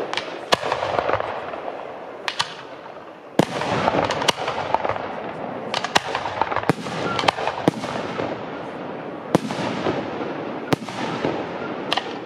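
Fireworks display: about a dozen sharp bangs, roughly one every second, over a continuous crackling that grows denser and louder about three seconds in.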